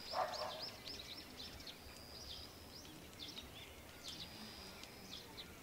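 Small birds singing faintly: rapid, repeated high chirps, with a thin high whistle held for about half a second a few times. A brief louder burst comes right at the start.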